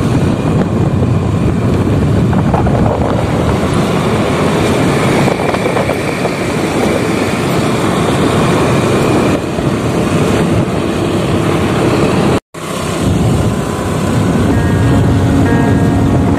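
Motorcycle ride noise at road speed: engine running under rushing wind on the microphone. It cuts out for a moment about twelve seconds in.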